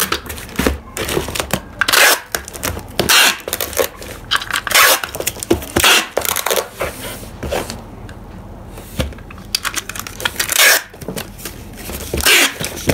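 Clear packing tape being pulled off a handheld tape dispenser in repeated rasping strips and cut, sealing a cardboard box, with the box handled and shifted on the desk. The strips come in quick runs, with a quieter pause about two-thirds of the way through.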